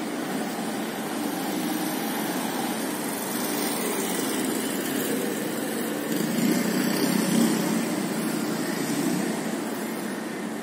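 City street traffic: a steady hum of motor vehicles, with an engine growing louder for a few seconds past the middle and then easing off.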